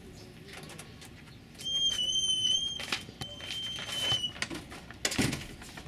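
A high, steady whistling squeal sounds twice, each about a second long. A short scraping rustle follows near the end.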